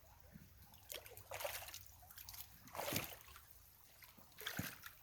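Creek water sloshing and splashing in four or five short bursts.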